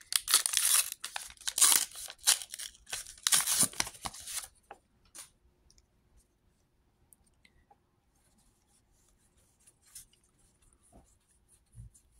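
A Star Wars Unlimited booster pack's wrapper being torn open and crinkled for about four and a half seconds, then only faint light handling sounds.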